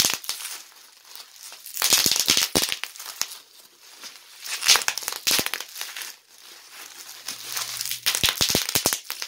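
Plastic bubble wrap crumpled and squeezed in the hands, crinkling in several bursts with sharp clicks.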